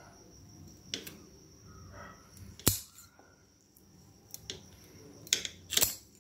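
Claws being cut off raw chicken feet: several sharp snips spaced irregularly, a second or more apart, with faint handling of the feet between them.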